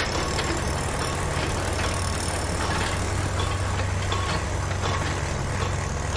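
A vehicle engine idling: a steady low hum that holds at one level throughout.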